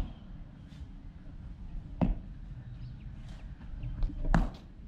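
Sharp knocks over a low background rumble: one at the start, one about two seconds in, then a close pair near the end, the louder second one being a cricket bat striking the delivered ball in the nets.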